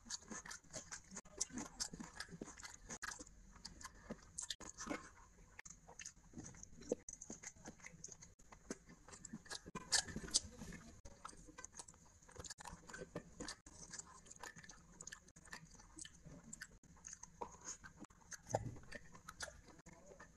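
Close-up eating sounds of rice and curry eaten by hand: wet chewing, together with squelches and clicks of fingers mixing rice on the plate, irregular throughout, with a few sharper snaps about halfway.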